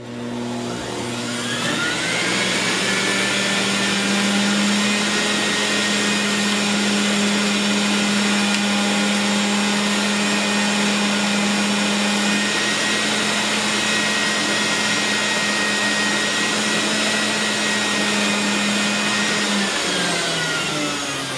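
Breville centrifugal juicer's motor spinning up over the first couple of seconds, then running with a loud steady whine as watermelon is pushed down the chute, and spinning down near the end.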